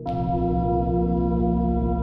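Ambient soundtrack music: a new sustained chord of many steady tones enters sharply right at the start and holds.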